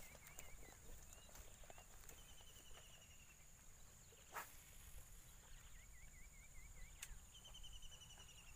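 Faint birds calling: several short runs of quick repeated notes, two different patterns taking turns, over a thin steady high whine. A single sharp click about halfway through.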